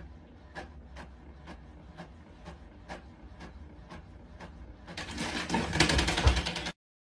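Epson inkjet printer running a print job: a regular series of mechanical clicks about two a second, then a much louder stretch of dense rattling from about five seconds in that cuts off suddenly near the end.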